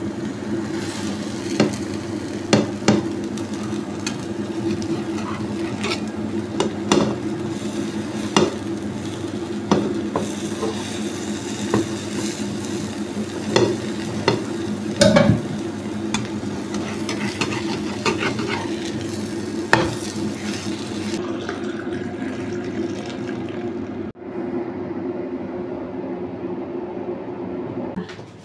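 Metal spatula scraping and tapping against a nonstick frying pan as an egg-and-banana omelette sizzles, over a steady low hum. The sizzling drops away a little past two-thirds of the way through, leaving the hum and the scrapes.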